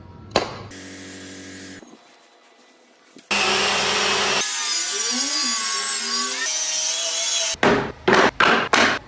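Woodworking power tools working wood, in short cut-together clips: a brief hum, then loud steady cutting noise with shifting pitch from about three seconds in, ending in about four short bursts as the tool is switched on and off.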